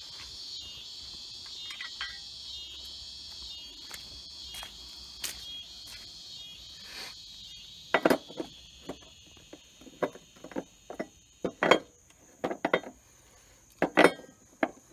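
Insects chirping in a steady, rapidly pulsing high chorus, fading after about seven seconds. Then comes a series of sharp clicks and knocks from parts being handled.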